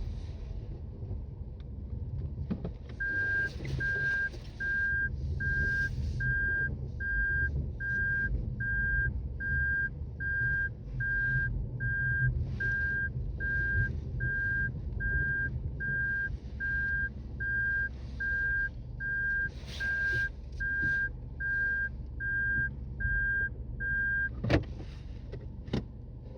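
Car's reverse-gear warning beeping inside the cabin, one high beep repeated a little over once a second, over the low rumble of the car. The beeping stops shortly before a sharp click near the end.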